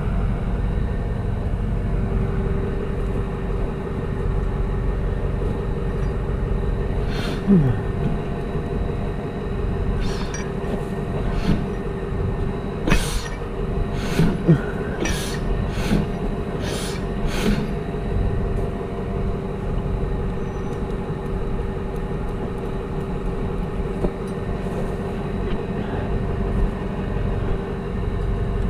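A steady, engine-like low hum with an even tone runs throughout. Over it, a run of sharp metal clicks and knocks comes between about 7 and 18 seconds in, as a backhoe hydraulic cylinder's rod and piston are worked out of the barrel.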